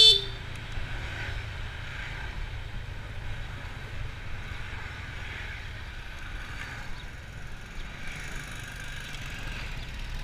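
Honda motor scooter running steadily while riding along a street, with road and wind noise. There is a short, loud beep right at the start.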